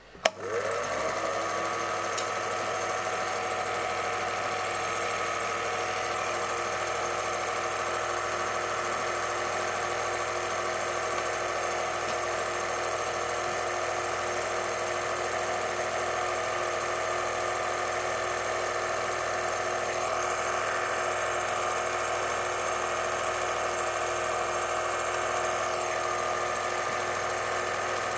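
8mm cine film projector switched on with a click, its motor rising in pitch as it comes up to speed within about a second, then running steadily.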